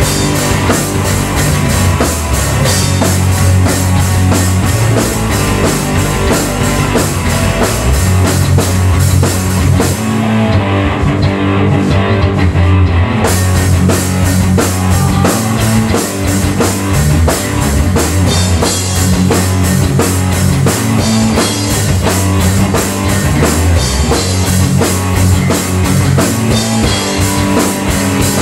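Loud instrumental heavy rock played live on a drum kit and electric guitar, with steady driving drum hits over heavy low riffs. The cymbals drop out for about three seconds around ten seconds in, then come back.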